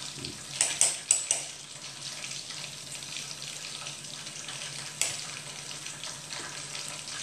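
Steady sizzling hiss of hot oil frying batter-coated mussels, with a few light clicks of mussel shells being handled about a second in and once more about five seconds in.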